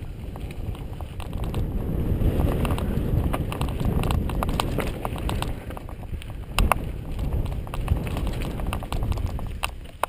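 Mountain bike riding fast down a rocky dirt singletrack, heard on the action camera: a steady low rumble of wind and tyres on dirt, with many sharp clicks and rattles as the bike hits stones, and a heavier knock about six and a half seconds in.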